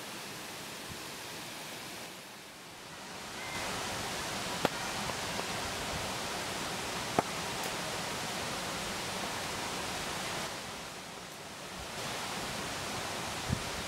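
Steady rushing of a waterfall, dipping in level twice. A few sharp clicks sound over it.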